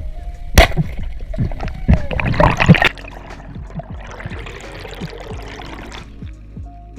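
Water splashing and gurgling around a diver's action camera, with a sharp loud knock about half a second in and a busier stretch of splashing to about three seconds, then a softer hiss of water.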